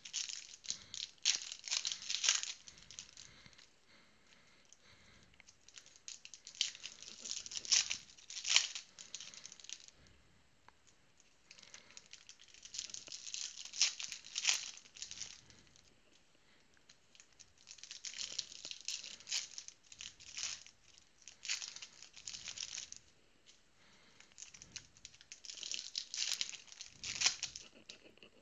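Trading-card pack wrappers being torn open and crinkled, in five bursts a few seconds apart.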